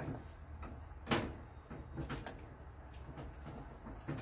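Silicone spatula scraping and knocking against an aluminium saucepan while stirring thick brigadeiro, in irregular short scrapes with one sharper knock about a second in.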